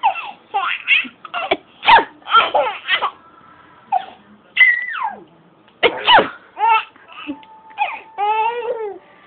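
A seven-month-old baby laughing in short bursts separated by brief pauses.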